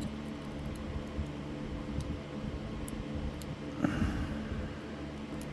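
A few faint, sharp clicks and taps of a hook pick working the pin stack of a Master Lock No. 40 padlock under light tension, over a steady low hum. The picking is resetting after an overset pin and setting pin 4 again.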